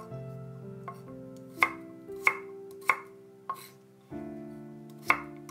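Kitchen knife chopping garlic cloves on a wooden cutting board: four sharp chops about two-thirds of a second apart, starting about a second and a half in, then a pause and another chop near the end. Soft piano music plays under it.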